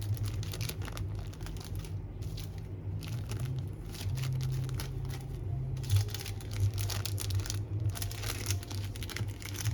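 Packaging crinkling and rustling as a small part is handled, with scattered light clicks, over a low steady hum.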